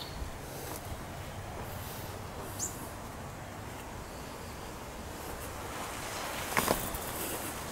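Steady outdoor backyard background noise, with one short high chirp about two and a half seconds in and a brief cluster of sharp knocks about two-thirds of the way through.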